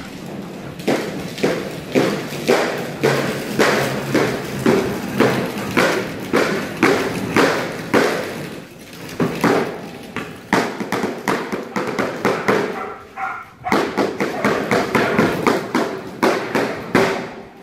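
Repeated thumps and taps, about two a second, broken by a short pause near the end: a decoy making distraction noise with foam pool noodles.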